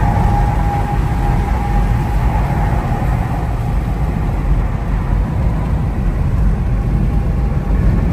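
Steady low rumble of a car driving, heard from inside the cabin, with a faint whine that is strongest in the first second.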